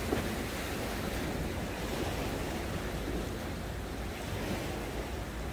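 Rough sea surf breaking and washing against the concrete tetrapods of a breakwater: a steady rush of water.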